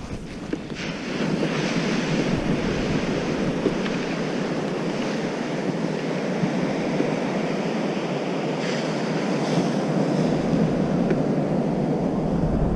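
Ocean surf breaking and washing on the beach, a steady rush of waves that gets louder about a second in.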